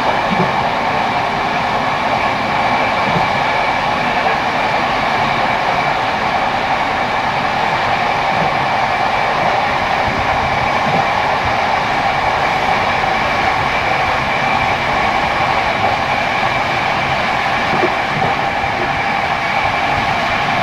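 Passenger train running at speed, heard from inside a carriage: a steady rumble of wheels on rails with a constant whine of several held tones over it.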